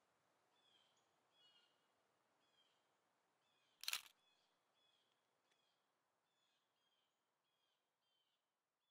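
Faint high chirps repeating evenly, about one every 0.7 seconds, with a single short sharp crackle about four seconds in.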